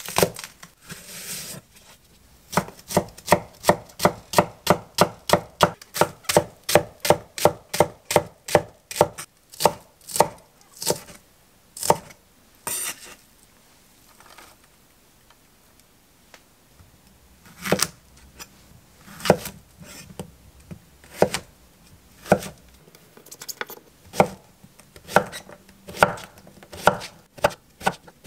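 Chef's knife chopping on an end-grain wooden cutting board. First comes a fast, even run of cuts, about three a second, mincing a green onion. After a pause come slower, spaced cuts through a zucchini.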